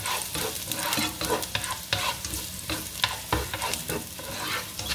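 Minced garlic sizzling in hot olive oil while a plastic spatula stirs it, scraping and tapping irregularly against the nonstick pan.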